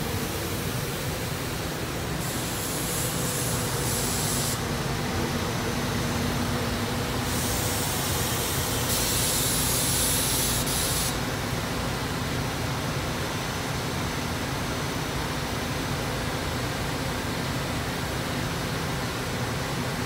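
SEPTA Silverliner IV electric multiple-unit train at the platform: a steady rumble with a faint hum underneath, and two spells of loud air hissing, one about two seconds in and a longer one from about seven to eleven seconds in.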